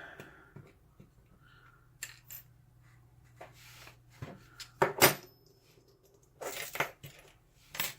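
Small metal clicks and taps as a clip remover works the retaining clip off the back of a lock cylinder, with a sharp metallic click and a short ring about five seconds in and scraping rustles near the end.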